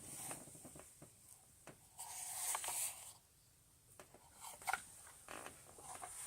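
Faint handling noises of a plastic vacuum floor tool, Hoover's All Floors Plus head, being picked up and turned over: a few light clicks and a brief scraping rub about two seconds in.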